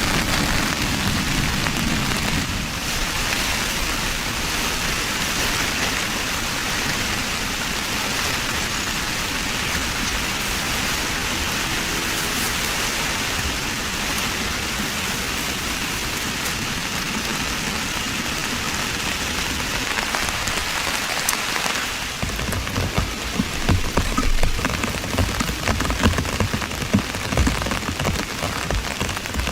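Heavy downpour drumming on a tent roof: a steady, dense hiss of rain. About two-thirds of the way through, heavier, uneven low thuds of big drops join in.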